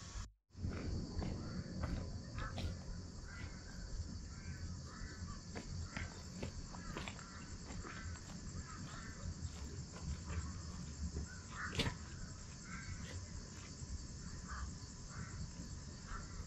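Outdoor ambience: a steady high insect chorus with scattered short bird chirps over a low rumble, broken by a brief dropout about half a second in.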